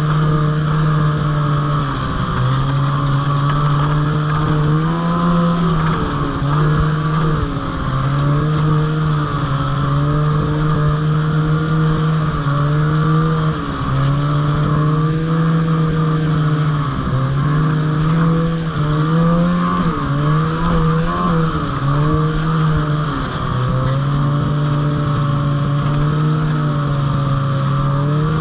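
Ski-Doo snowmobile engine running at trail speed, its pitch dropping and climbing again many times as the throttle is eased off and reopened, with a steady higher whine alongside.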